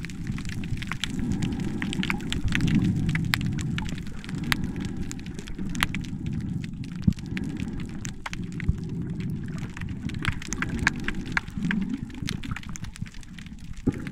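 Underwater sound picked up by a submerged camera over a coral reef: a steady, muffled low wash of water with many scattered sharp clicks and crackles.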